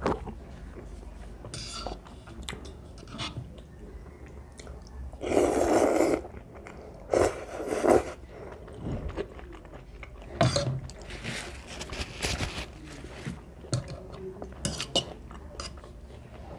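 A person eating instant cheese ramen with corn close to the microphone: wet chewing with small clicks, broken by a few louder, second-long slurps of noodles, the loudest about five seconds in.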